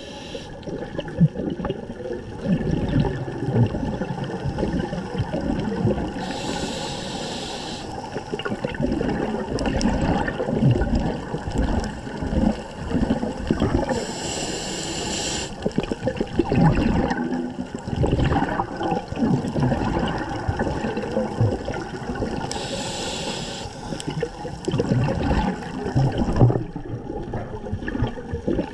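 Scuba regulator breathing heard underwater: three hissing inhalations through the regulator, about eight seconds apart, with the gurgling rumble of exhaled bubbles and water noise in between.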